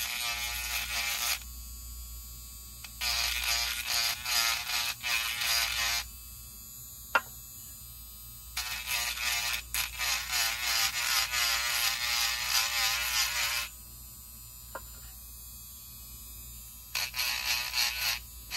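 Small rechargeable cordless rotary tool with a sanding band, running in four separate bursts of a few seconds each, sanding a resin 3D-printed part. Its whine wavers in pitch while it runs.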